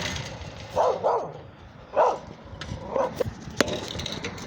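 Dogs barking: four short barks, a quick pair about a second in, then single barks at about two and three seconds, over outdoor rustling.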